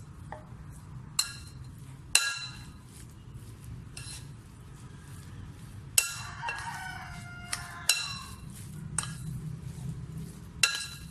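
A metal spoon clinks against a glass mixing bowl while stirring raw chicken mince, sharp ringing clinks every second or two. A short pitched call in the background about six seconds in.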